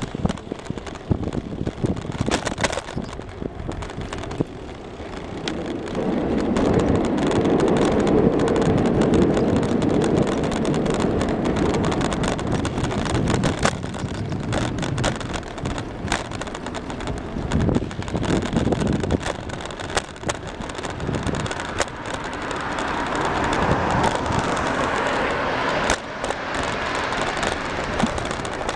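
Brompton folding bicycle being ridden over paving: tyre and road rumble with many small clicks and rattles over bumps, and wind buffeting the microphone. The rumble swells louder for a few seconds about six seconds in and again near the end.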